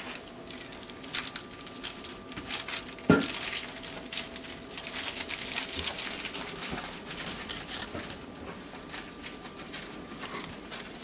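Boxer puppies playing and scuffling on a vinyl floor: a busy patter of small clicks and rustles from paws and claws, with one sudden loud sharp sound about three seconds in.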